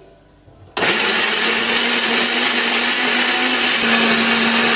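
Countertop blender switched on about a second in and running steadily, grinding shallots, garlic, red chillies, turmeric and candlenuts with a little water into a smooth spice paste.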